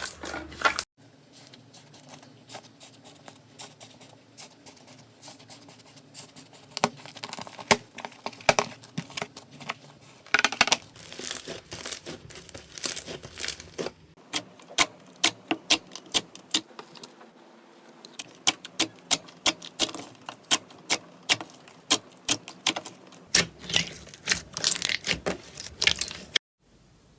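Slime being squeezed and pressed by hand, giving many sharp crackling and popping clicks that come in dense runs.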